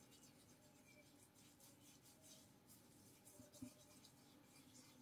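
Faint, irregular scratchy rustling of fingers rubbing beard balm into a short, bristly beard, over quiet room tone.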